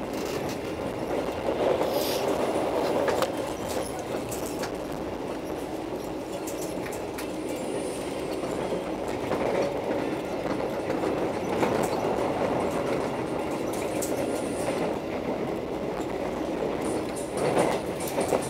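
Argo Parahyangan passenger coach running at speed, heard from inside: a steady rumble of wheels on rail with scattered irregular clicks from the track, and a few louder knocks near the end.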